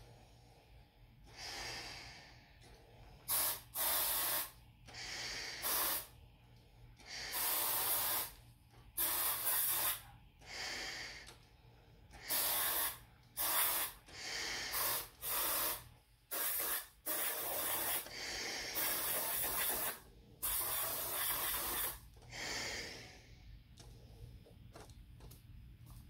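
Repeated hissing bursts of aerosol deodorant spray around a US M40 gas mask, mixed with breaths drawn in and pushed out through the mask, every second or two. This is a spray test of the mask's seal and filter, which let none of the smell through.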